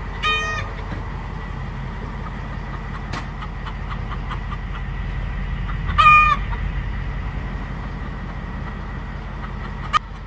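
Chickens calling: two short, pitched squawks, one right at the start and a louder one about six seconds in, over a steady low rumble.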